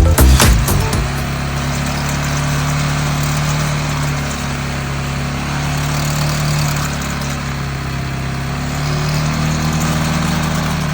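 CFMoto CForce 520 ATV's single-cylinder engine running at a steady speed, after a short tail of music at the very start.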